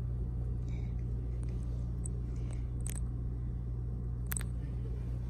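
Steady low background hum, with two faint clicks about three and four seconds in.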